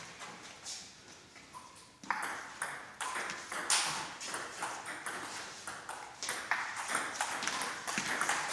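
Table tennis rally: the ball clicking back and forth off the paddles and the table. A few faint ticks at first, then from about two seconds in the rally runs at a quick, even pace with louder clicks.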